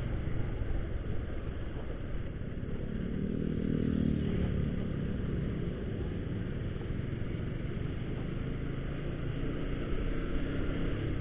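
A motorcycle being ridden, heard from a camera on the bike: steady engine and road noise, with the engine note swelling for a couple of seconds about three seconds in.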